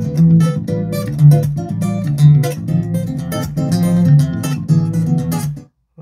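Guitar music with a strummed rhythm and strong bass playing through a JBL portable Bluetooth speaker; it cuts off near the end.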